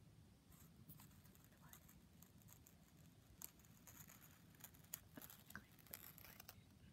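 Faint scratching of a black marker tip drawing a line on felt, with small irregular taps and clicks, starting about half a second in.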